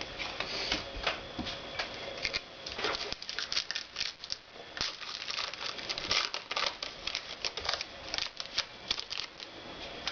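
Trading cards being handled and flipped through by hand: many quick, irregular ticks and rustles of card stock sliding and snapping against card.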